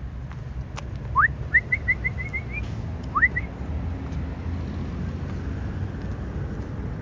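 Whistling: a rising whistle followed by a quick run of short, even notes, then a second rising whistle and one more note, over a steady low rumble.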